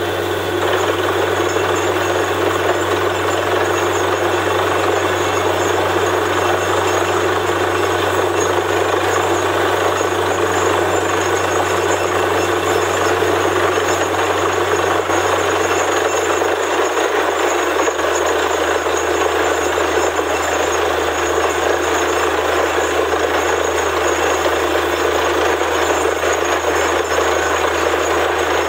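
Borewell drilling rig running steadily in a dense mechanical din. A little over halfway through, its low engine hum steps down in pitch.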